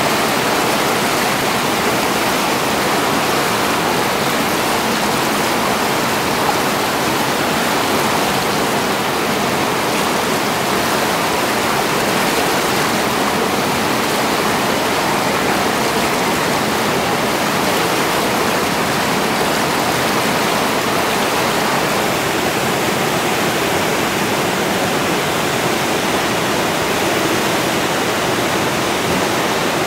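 Whitewater rapids and a small waterfall rushing steadily: an even, unbroken noise of churning river water.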